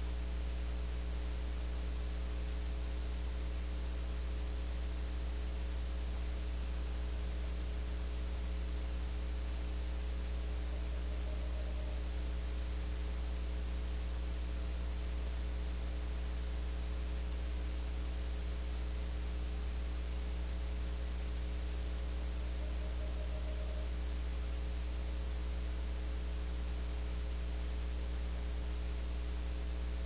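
Steady electrical mains hum with hiss on the nest-box camera's sound line. Twice, about 11 and 23 seconds in, a western screech owl gives a soft, rapid trill of about a second.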